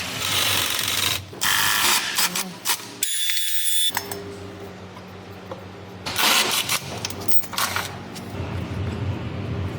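Ratchet wrench clicking in short spells as screws are undone in the engine bay.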